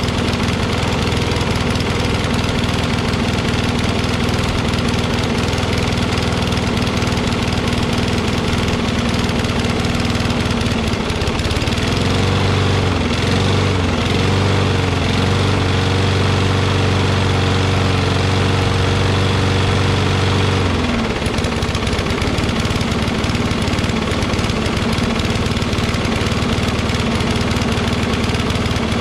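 Toro push mower's Kohler XT675 single-cylinder engine running just after a cold start. It is not yet running well because its automatic choke flap is slow to open. About twelve seconds in its note swings up and down twice, then holds a steadier, slightly louder note until about twenty-one seconds in, when it drops back.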